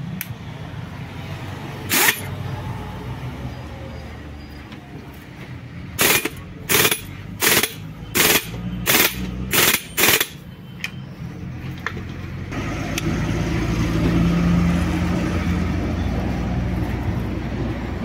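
A single sharp knock, then a run of seven loud, sharp knocks about 0.7 s apart. Partway through, a steady low rumble comes in and holds.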